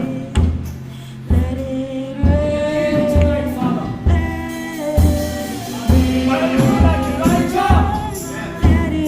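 Live gospel worship music: a steady bass-drum beat under sustained keyboard chords, with voices singing.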